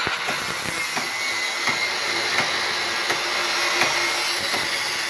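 Handheld angle grinder with a cut-off disc cutting through a square steel tube, running steadily under load with a high grinding noise.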